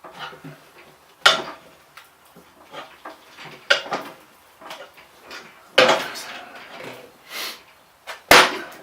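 Metal clanking and scraping of a tyre lever and tyre-fitting fixture as a motorcycle tyre is worked onto an alloy wheel. There are four loud sharp clanks, about two seconds apart, with smaller knocks and scrapes between them.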